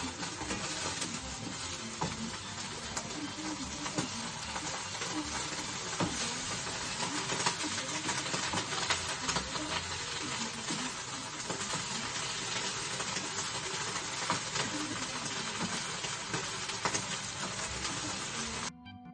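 Eggplant and green pepper sizzling as they are stir-fried in a frying pan, with frequent clicks and scrapes of the utensil against the pan. The sizzling cuts off suddenly near the end, and music takes over.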